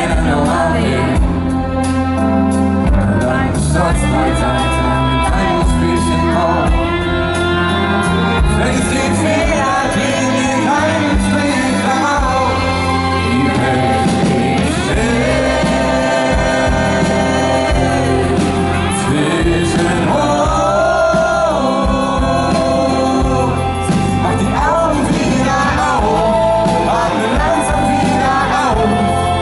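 Live unplugged pop band playing a song: a male lead vocal sung over acoustic guitar, drums and strings, recorded from the audience in a large arena.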